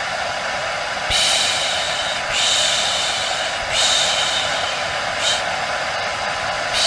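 Hair dryer running steadily as white noise for lulling a baby to sleep. Its rushing sound swells into a louder, sharper hiss about every second and a half.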